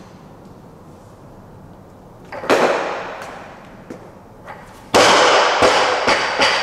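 A loaded barbell is jerked overhead about two and a half seconds in, with a thud of the lifter's feet on the platform and the plates rattling. About five seconds in the barbell, loaded to 85 kg with rubber bumper plates, is dropped from overhead onto the platform with a loud crash. It bounces with a few smaller knocks, and the crash rings on in the large hall.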